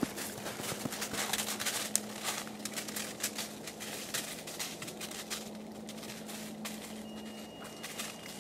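Footsteps crunching in snow: an irregular run of small crunches and crackles, thinning out in the second half.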